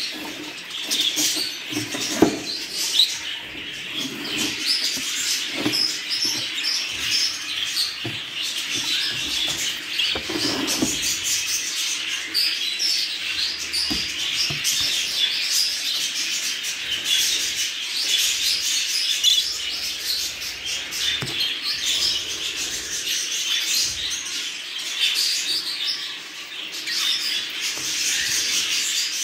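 Many caged budgerigars chirping and chattering at once, a dense, continuous warble of high chirps, with a few short knocks here and there.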